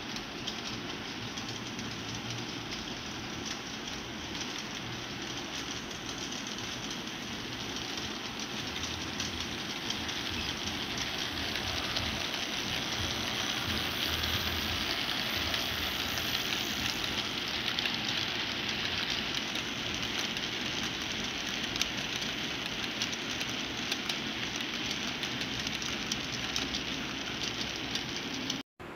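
HO scale model freight train headed by two diesel locomotives rolling along the track, with a steady whirring rumble and fine clicking of wheels over the rails. It grows louder as the locomotives pass closest, about halfway through, then eases as the cars go by.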